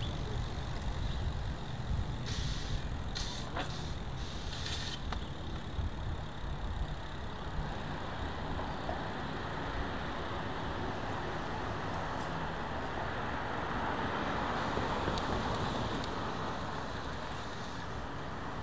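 Wind buffeting the camera microphone and tyre noise from a bicycle rolling along a paved road, a steady rushing with a few sharp clicks or rattles about two to five seconds in.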